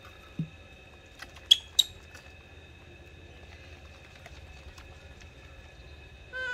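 Two sharp knocks about a second and a half in, a third of a second apart, as a metal milk-powder tin is set down on a table, after a soft low thump; a faint steady high whine sits underneath, and a short animal call comes right at the end.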